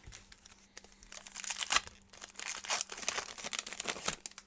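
Foil trading-card pack wrapper crinkling and being torn open, a dense crackling rustle with many sharp clicks that builds from about a second in and stops just before the end.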